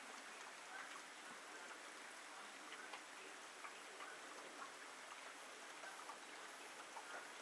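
Faint, irregular small clicks and wet smacks over a steady low hiss: a horse's lips and tongue licking and mouthing powdered herbs from a flat palm.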